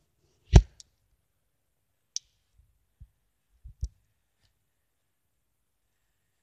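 Handling noise: one sharp knock about half a second in, followed by a few light clicks and soft taps as the small metal toy locomotive and the filming device are moved about.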